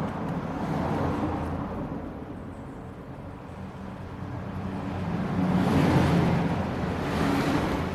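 Road traffic: vehicles passing by, a broad rushing noise that swells, fades, then swells again to its loudest about three-quarters of the way through, over a steady low hum.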